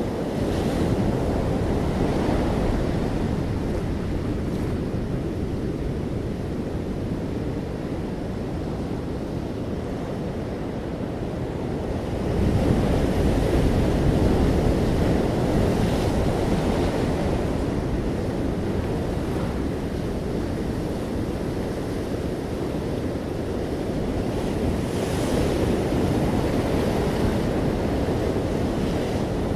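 Ocean surf: waves breaking and washing ashore in a continuous rush, swelling louder with a breaker about twelve seconds in and again near the end.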